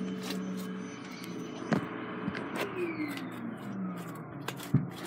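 Vacuum cleaner running in the background, a steady hum whose pitch slides down about halfway through. Several sharp knocks and clicks of things being handled on the table.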